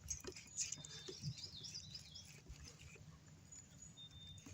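Faint bird chirps and short whistled notes, with a few scattered small clicks and taps.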